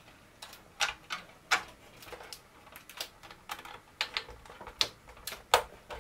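Small parts and screws being handled and fitted inside a plastic model ship hull: irregular sharp clicks and taps, the loudest about five and a half seconds in.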